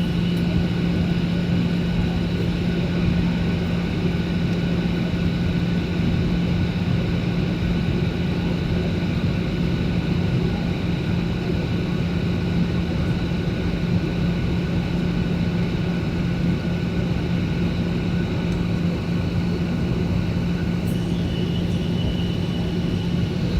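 Airliner cabin noise on final approach: the engines and airflow make a steady drone with a constant low hum and faint high-pitched tones.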